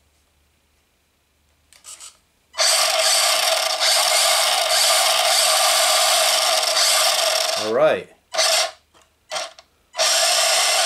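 Electric motor and gear drive of a toy-grade RC car, converted to a hobby-grade ESC, spinning the wheels on the bench. After about two and a half seconds of quiet it runs loudly with a steady whirring rasp for about five seconds, then comes in several short throttle blips. This is a test run just after the motor leads were swapped so that the car drives forward.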